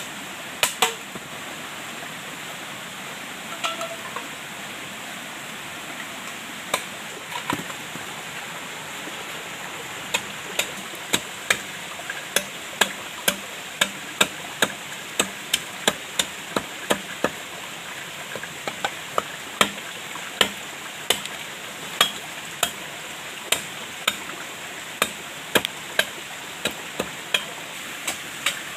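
Repeated sharp knocks over a steady hiss: a few scattered ones at first, then a steady run at about two a second from about ten seconds in.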